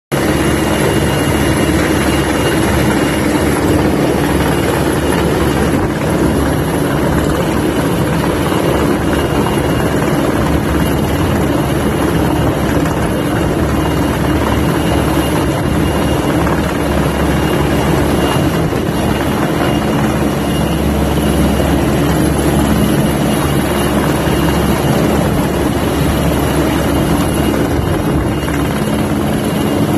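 Rescue helicopter hovering low overhead: a steady, loud rotor beat with a thin high turbine whine.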